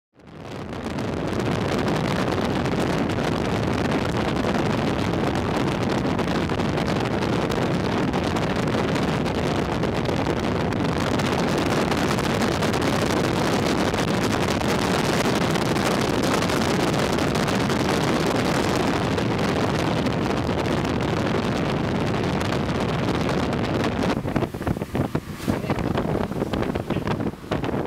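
Steady rush of wind and road noise from a car driving along a highway, with wind buffeting the microphone. About 24 seconds in it turns uneven and choppy.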